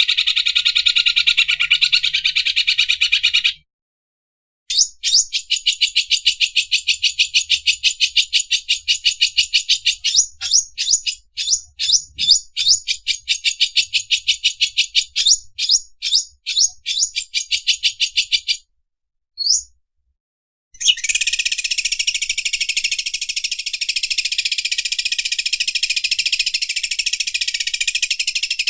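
Greater green leafbird (cucak ijo) singing the very fast, rattling 'mesin obras' song, rapid repeated high notes that mimic an overlock sewing machine. It comes in three long runs broken by two short pauses, and the middle run slows into a stutter of separate notes before a single short rising note.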